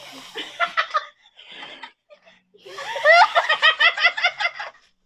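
A small group of people laughing hard in quick ha-ha-ha bursts: a short bout in the first second, then a longer fit of laughter from about three seconds in.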